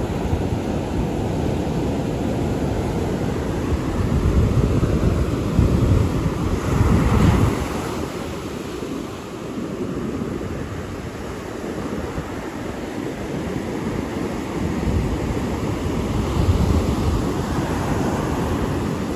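Ocean surf breaking and washing up a sandy beach, mixed with wind buffeting the microphone. It swells louder about a third of the way in and again near the end.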